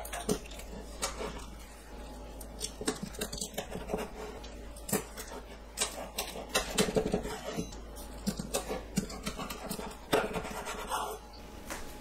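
Cleaver cutting down through fish cake and toasted laver onto a wooden cutting board: irregular knocks and clicks of the blade against the board.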